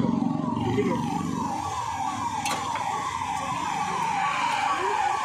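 A siren sounding a quick falling yelp, repeated about three times a second, amid street traffic. An engine's low running fades away during the first second or so.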